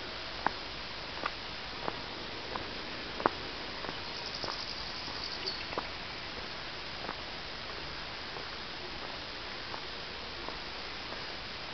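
Footsteps of a person walking a dirt forest trail, sharp ticks about every two-thirds of a second that fade after the first half, over a steady hiss. A short, high, rapid trill sounds about four to five seconds in.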